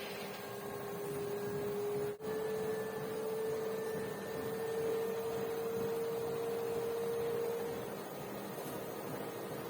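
LG washing machine running after its drum bearing repair, giving a steady whine with a momentary break about two seconds in, after which the pitch sits slightly higher.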